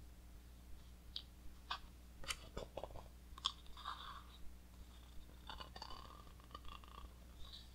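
Thick pages of a large Taschen art book being turned by hand: a run of faint paper crackles, then soft rustling as the page is swung over and settles.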